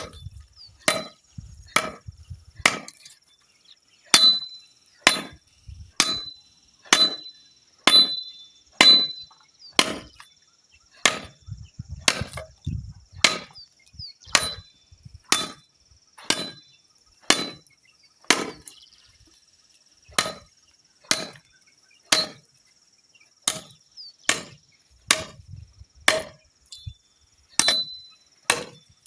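Repeated blows of a hand tool on wood, steady at about one a second, in hive-building work. A steady faint high-pitched tone runs behind them.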